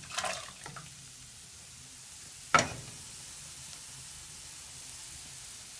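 Diced potatoes tipped from a bowl into a pot of water, with a brief splash and clatter in the first second. A single sharp knock comes at about two and a half seconds, the loudest sound. Under it all runs a steady faint sizzle.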